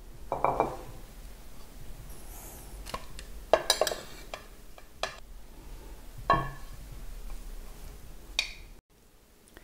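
Metal spoon scraping and knocking against a ceramic plate and bowl as diced vegetables and herbs are pushed into the bowl and stirred. It gives a few separate clinks and taps, the loudest about three and a half seconds in and again a little after six seconds.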